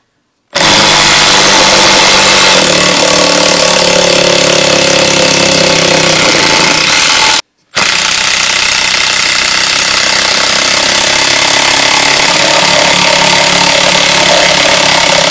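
Ryobi P1870 18V One+ impact driver hammering continuously in reverse as it backs a long screw out of a wooden beam. It runs in two long bursts with a short stop about seven and a half seconds in.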